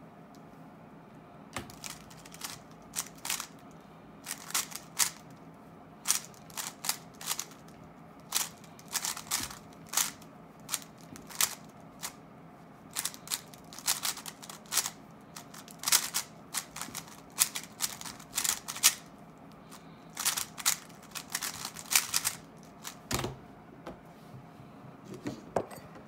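Plastic 3x3 Rubik's cube being turned fast in a speedsolve: rapid clacking of the layers in quick irregular bursts, with a heavier knock near the end.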